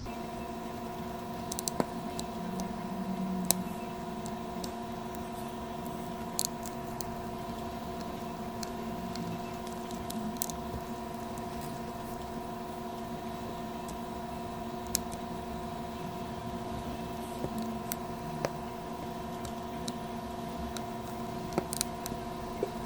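Scattered sharp clicks and taps of tools working on the plastic case of a Noco GB40 jump starter as it is opened, over a steady electrical hum.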